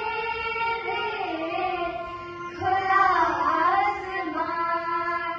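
A group of children singing a song together into a microphone, with keyboard accompaniment, in long held notes; about halfway through the singing swells louder with a swooping turn in pitch.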